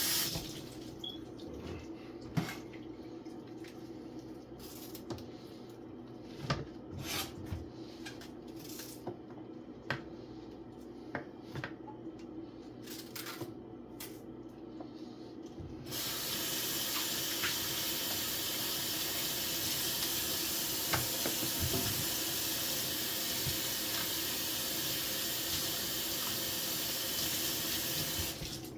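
Vegetables being handled in a basin of water at a kitchen sink, with scattered light knocks and splashes; a little over halfway through a water tap is turned on and runs steadily, stopping near the end.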